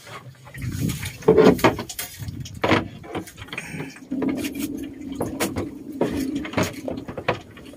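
Sharp knocks and scrapes of a styrofoam fish cooler being handled, with a steady low engine drone coming in about four seconds in.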